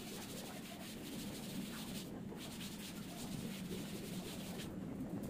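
A cloth rubbing across a chalkboard as it wipes off chalk writing: a steady rubbing of repeated strokes, with a brief let-up about two seconds in and again near the end.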